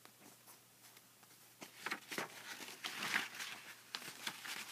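Faint rustling and scattered soft clicks of handling noise, as a hand-held camera is moved about.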